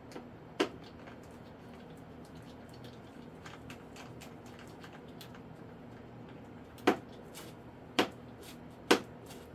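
Sharp clicks and taps of a hand screwdriver on the wing screws and plastic fittings as the wing is screwed onto a foam RC jet: one a little over half a second in, then three about a second apart near the end, over a low steady hum.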